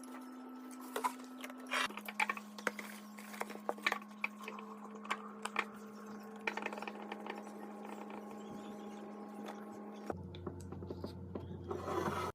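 Light clicks and taps of household items being handled and set down, over a steady low hum that drops in pitch twice.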